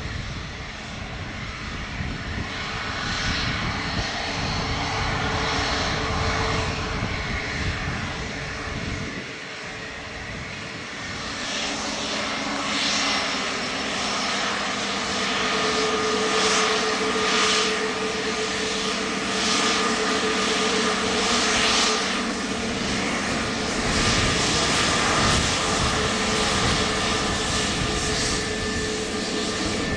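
Airbus A321neo's twin turbofan engines running at taxi power, a steady hissing whine with a low rumble as the jet taxis past, growing louder over the second half as it draws near.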